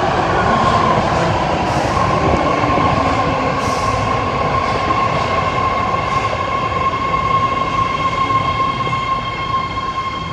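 BART subway train pulling into the station and slowing, its wheels squealing against the rails in one steady high-pitched tone over the rumble of the cars. A few brief hisses sound in the first four seconds, and the whole sound eases off slightly near the end.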